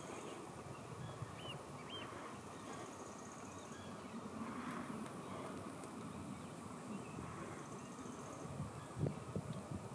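Outdoor ambience: a low rumble of wind on the microphone, with two short chirps from a small bird about one and a half and two seconds in, and a brief thump near the end.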